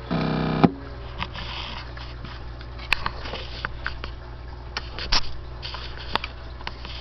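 Brief buzzy tone from a CB radio set-up, about half a second long and cut off by a sharp click, then a steady low hum with scattered clicks and crackles.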